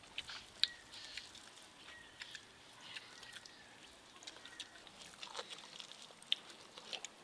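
Quiet eating sounds from people eating rice and curry with their hands: scattered soft clicks and mouth smacks. Faint bird chirps come through in the middle.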